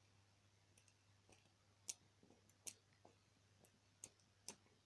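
Near silence with a steady low electrical hum, broken from about two seconds in by four sharp, faint clicks and a few weaker ticks, like small objects being handled.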